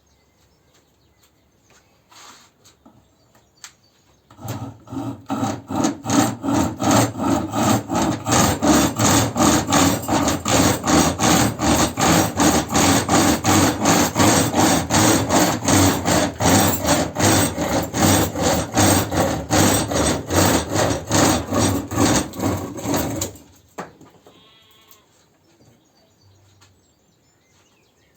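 Pocket chainsaw, a length of old Stihl saw chain pulled back and forth by hand, cutting through wood in a fast, even rhythm of strokes. It starts about four seconds in and stops shortly before the end.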